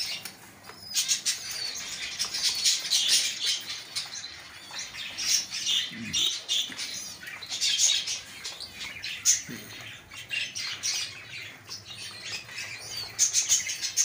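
Fancy pigeon squabs begging to be fed by their parents: rapid, high-pitched squeaky cheeps coming in spells, with brief wing flutters.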